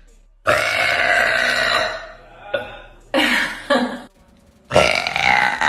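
A woman belching loudly three times in a row, each belch drawn out, the first starting about half a second in and the last near the end.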